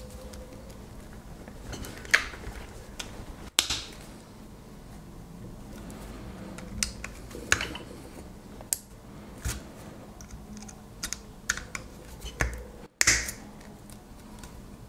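Irregular sharp clicks and snaps of steel diagonal cutters and a knife blade biting and prying at the crimped steel end of a small AAAA alkaline cell, a dozen or so scattered through the stretch, with soft handling noise between them.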